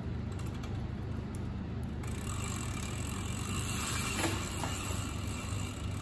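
Canyon Aeroad road bike's chain and cassette running as the rear wheel turns in a work stand: a steady whir with a few light clicks about four seconds in. The drivetrain is being checked for a noise that shows in first gear.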